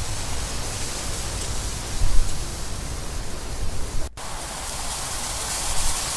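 AI-generated sound effect playing back: a steady rushing noise with a low rumble underneath. About four seconds in it breaks off for an instant and a brighter, hissier rush takes over, the next generated option starting.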